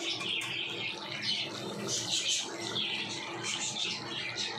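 Cauliflower and potato curry simmering in a wok, bubbling and spitting in irregular crackly bursts.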